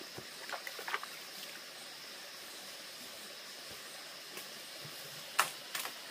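Steady background hiss with a few light clicks and knocks: a small cluster about a second in and two sharper knocks near the end.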